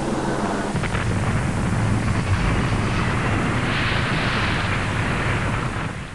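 Sound effect for an animated subscribe-and-like graphic: a loud, dense rumbling, rushing noise that grows brighter about four seconds in, then fades out near the end.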